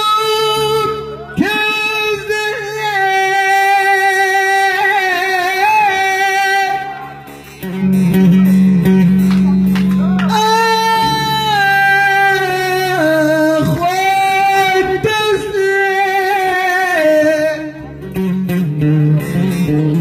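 A man singing a Turkish bozlak into a microphone: long held notes with a wavering, ornamented pitch in two drawn-out phrases, over a sustained low drone and a plucked bağlama (long-necked lute).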